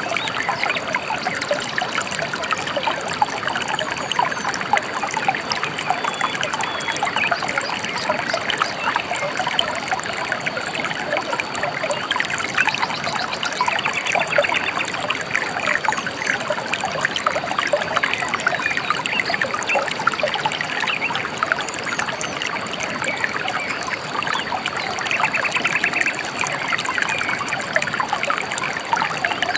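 A gentle river flowing steadily over stones, its water babbling and trickling without pause. Birds chirp briefly over it about halfway through and again near the end.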